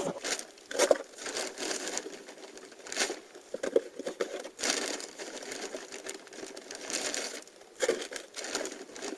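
Plastic coal sack rustling and crinkling as it is rummaged for and handled, in irregular bursts with scrapes between them.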